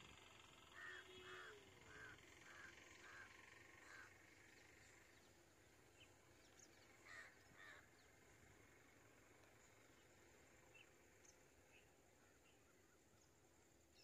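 Crow cawing: a run of six caws about half a second apart, then two more a few seconds later, faint over quiet outdoor background noise.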